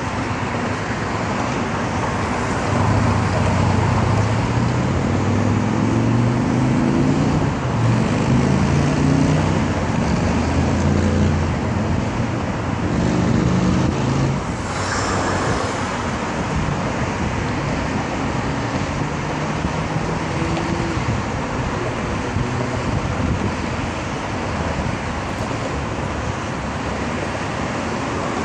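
Steady road traffic noise from a busy expressway. In the first half an engine climbs through its gears, and a vehicle passes close about halfway through.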